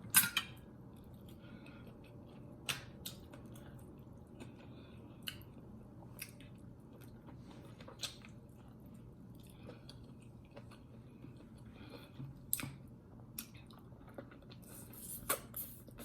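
Close-up chewing and mouth sounds of someone eating: soft wet smacks and scattered sharp clicks, the loudest just at the start, over a faint steady low hum.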